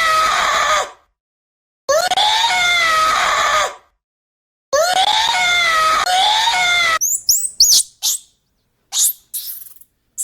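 Three long, loud wailing animal calls, each rising then falling in pitch, the last broken in two, followed by quick high chirps from about seven seconds in.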